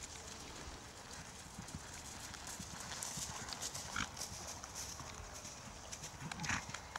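Hoofbeats of a pony trotting on grass turf: soft, irregular thuds and clicks.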